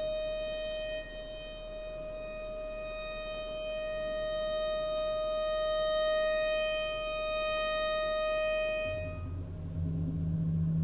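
Contemporary chamber ensemble: a violin holds one long, high bowed note that swells in the middle and stops about nine seconds in, as low notes enter beneath it.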